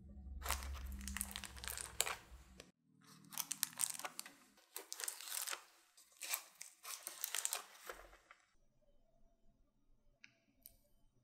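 Foil-wrapped paper molds being twisted and pulled out of baked puff-pastry cornet shells: crinkling foil and crackling flaky crust, in several bursts over about eight seconds, then much quieter.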